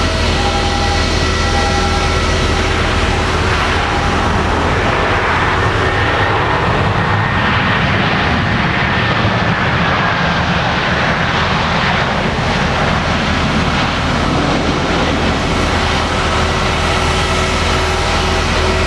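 Jet airliner noise on an airport apron: a steady whine of several fixed tones, with the rushing noise of a taxiing jet's engines swelling and then fading in the middle, a faint whistle sliding down in pitch as it passes.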